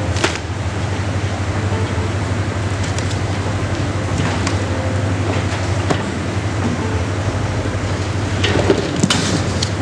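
Steady machine hum and noise of a workshop, with cardboard box flaps rustling and scraping as they are pulled open by hand. There are a few short scrapes, and a longer, brighter scrape near the end.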